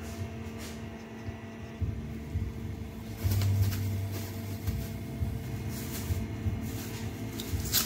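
Clear plastic bag rustling and crinkling as it is opened and handled, in short crackles from about three seconds in, the sharpest near the end, with low handling rumbles. A steady electrical hum runs underneath.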